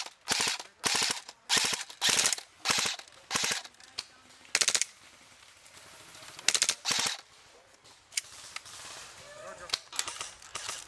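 Airsoft M4-style electric rifles firing short full-auto bursts of rapid clicking shots, a burst roughly every half second at first, then a few more bursts after short pauses. Near the end only single sharp shots are heard.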